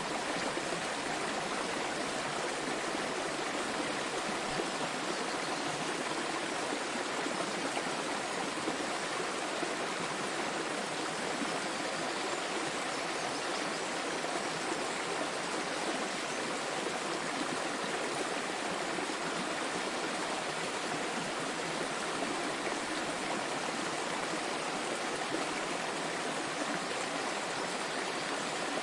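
Small waterfall: water falling and splashing in a steady, even rush, with no pauses or changes.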